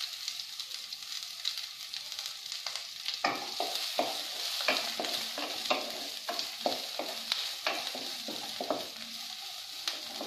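Finely chopped onions sizzling in hot oil in a kadhai. From about three seconds in, a wooden spatula stirs them, scraping and tapping against the pan in quick, irregular strokes.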